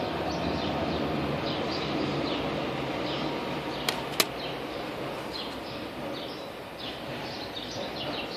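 Two sharp plastic clicks close together about four seconds in, as CD jewel cases are handled and set down. Behind them is a steady background hiss with faint, repeated high chirping.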